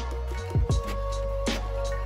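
Background music: an electronic track with a deep sustained bass and a steady beat of drum hits.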